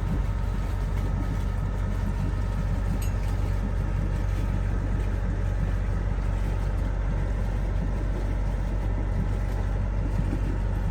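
A sailboat's engine running steadily at low speed, a constant low hum.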